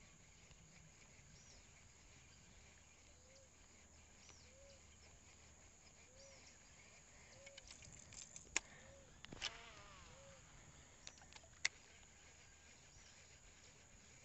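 Faint bird calls: a short, low, arched note repeated about every second and a half, with some higher chirps. About halfway through come a few sharp clicks and a brief falling whir.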